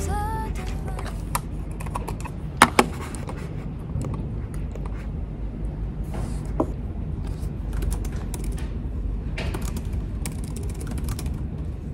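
Computer mouse and laptop keyboard in use: scattered clicks, with a sharp double click about two and a half seconds in, then a run of laptop key taps near the end, over a low steady background hum.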